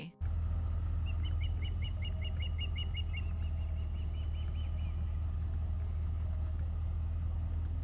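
Ospreys calling: a rapid series of short, high whistled chirps, about five a second, starting about a second in and fading out by about five seconds in. Underneath is a steady low rumble, which is the loudest sound.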